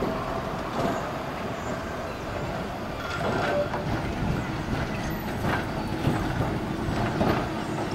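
Blackpool Twin Car tram set 675+685 rolling slowly over depot track and pointwork, its wheels rumbling and clicking over the rail joints. It gets louder from about three seconds in as it approaches, with a brief wheel squeal.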